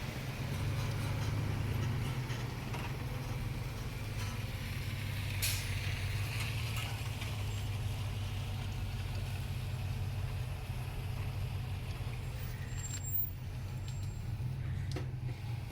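Street traffic: a large road vehicle's engine rumbling steadily, with a short hiss about five seconds in.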